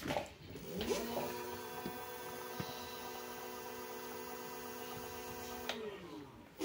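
Electric scooter motor, just repaired after it made an abnormal noise, on a test run. After a click at the start, its whine rises as it spins up about a second in, holds a steady pitch and winds down near the end.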